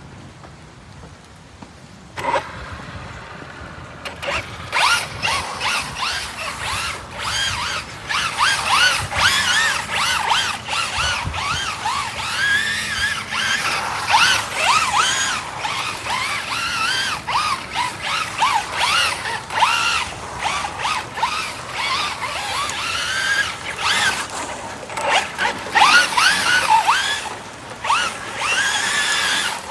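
Traxxas Rally VXL 3S RC car's brushless electric motor whining, its pitch rising and falling again and again as the car speeds up and slows down, starting about two seconds in.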